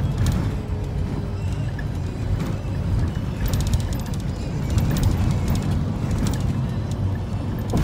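Cabin sound inside a Mercedes-Benz Sprinter 516 CDI minibus on the move: steady diesel engine and road rumble, with light rattling clicks from the interior every second or two.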